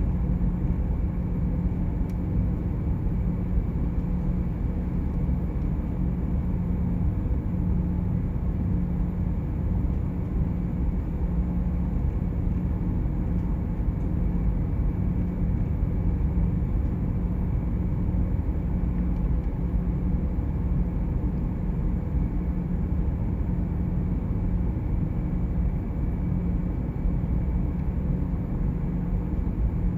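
Steady low rumble of a ferry's engines and hull heard inside a passenger cabin, with a constant deep hum running under it.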